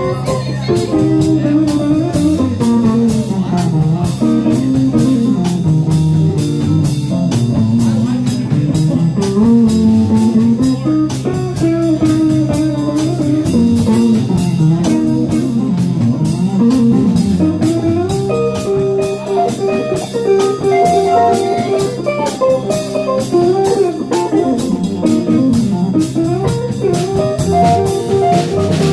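Live band playing an instrumental blues jam: a lead line that wanders up and down over a Fender bass and a drum kit keeping time on the cymbals.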